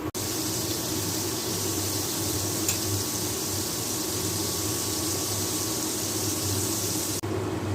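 Chicken pieces deep-frying in hot oil: a steady, even sizzle that starts and cuts off abruptly, over a low steady hum.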